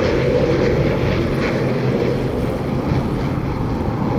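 Firefighting water-skimmer aircraft's propeller engines running loud and steady as it comes in low over the river to scoop water.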